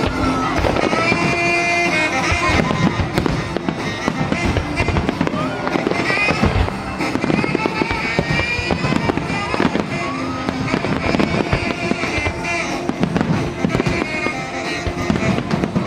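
Fireworks bursting and crackling in quick succession over loud music playing along with the display.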